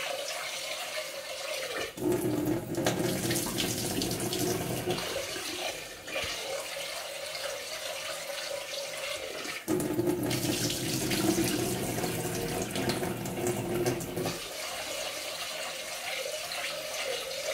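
Kitchen tap running into a saucepan of rice held under it over a stainless steel sink, rinsing the starch off the rice. The stream alternates every few seconds between a fuller, deeper pour and a thinner splash as the pan fills.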